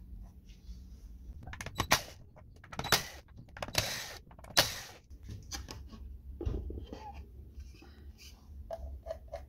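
Wooden parts being handled: several short knocks and scrapes, the loudest about two, three, four and four and a half seconds in, over a steady low hum.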